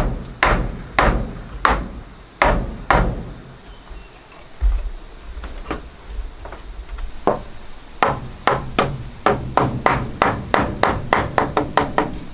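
Hammer blows on wood: a run of strikes about two a second, a sparser stretch with a few single blows, then a quicker run of lighter strikes, three or four a second, near the end.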